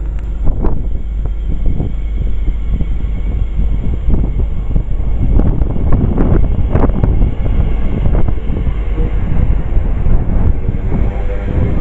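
A passing train's rumble and clatter, with wind buffeting the microphone and a pitched hum coming in near the end.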